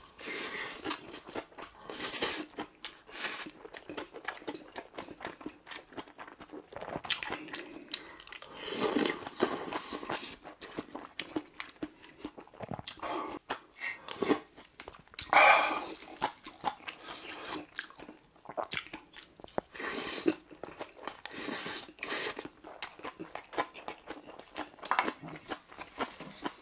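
Close-miked chewing and crunching of big spoonfuls of bibimbap made with crunchy radish salad and bean sprouts, in irregular bites with occasional short clicks of a metal spoon.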